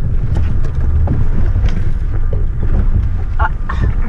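Low rumble of a 4x4 driving off-road through mud, heard from inside the cabin, with clods of mud knocking against the body and windows.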